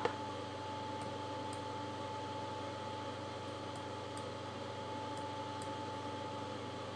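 Steady hum and hiss of a desktop computer's fan and electrics, with a faint high whine, and a few faint ticks scattered through.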